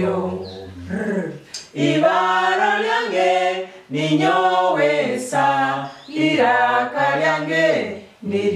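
A small group of adults chanting letter sounds in unison in Runyoro-Rutoro, sung in short phrases of about two seconds each on held notes, with brief breaks between them.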